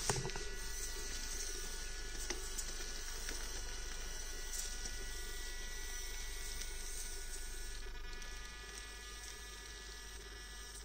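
Orlandoo Hunter OH32M02 1/32 micro crawler's N20 105 rpm gear motor whining steadily as the truck climbs rock, with a few sharp clicks of tyres and chassis on the rock. The whine eases off about eight seconds in as the truck tops out.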